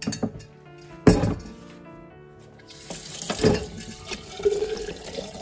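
Water running from a kitchen tap into a sink for a few seconds in the second half, after a sharp knock about a second in, with quiet background music underneath.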